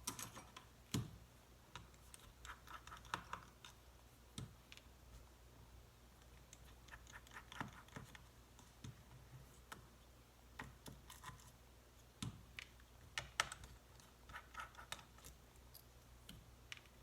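Irregular light clicks and small scrapes of small tools and parts being handled inside an opened MacBook Pro laptop.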